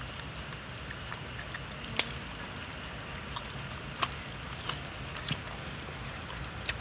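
Hands kneading and rubbing seasoning into a raw cow heart on a wooden board: soft handling noises with a few sharp clicks, the loudest about two seconds in.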